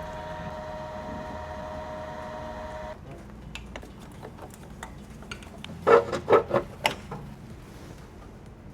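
A small motor hums steadily, then cuts off suddenly about three seconds in. Scattered clicks follow, and a quick run of four or five loud knocks comes a little past the middle.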